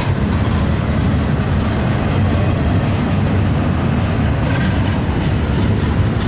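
Double-stack intermodal freight train rolling past: a steady low rumble of the well cars' wheels on the rails, with faint clicks.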